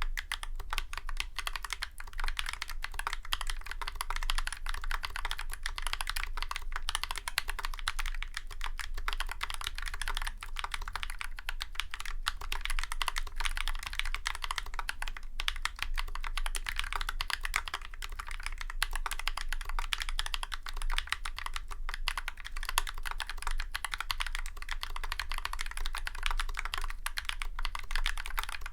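Continuous fast typing on a Drop CTRL High Profile mechanical keyboard fitted with YOK Holy Panda tactile switches lubed with Krytox 205g0 and Tribosys 3203, lubed plate-mount stabilizers and GMK keycaps. The result is a dense, steady stream of keystroke clacks.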